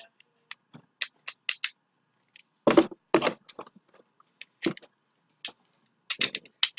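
Hard plastic Beyblade parts clicking and scraping as they are handled, with a string of sharp clicks and a few longer rattling scrapes, while the Achilles top is switched to stamina mode.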